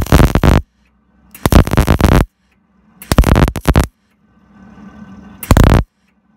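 Gas-shielded MIG welder arcing on steel body panel in four short bursts, each under a second, as a patch is stitch-welded in.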